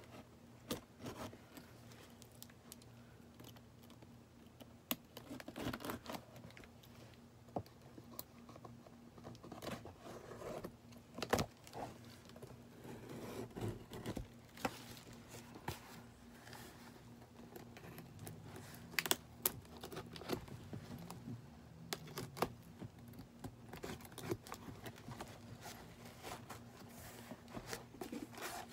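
A cardboard parcel being opened by hand: irregular clicks, scrapes and short rustles of cardboard and packing material, with metal charm bracelets jingling on the working wrist.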